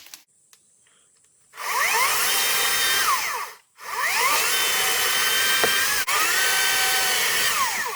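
Hart 14-inch battery chainsaw's electric motor and chain triggered three times in a row. Each time it spins up with a rising whine, holds a steady pitch for about two seconds, then winds down. It is not nearly as loud as a gas chainsaw.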